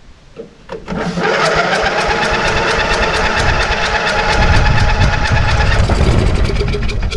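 Ride-on mower engine turning over on its electric starter, powered from a car battery. It cranks in a fast, even rhythm of about six beats a second without catching, heavier near the end as water is blown out of the exhaust.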